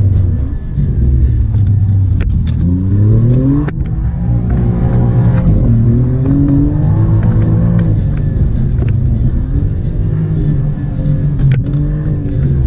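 Alfa Romeo Giulia Quadrifoglio's twin-turbo V6 under hard acceleration, heard from inside the cabin. The engine note climbs and breaks off sharply at a gear change about four seconds in, then rises and falls with the throttle through the corners.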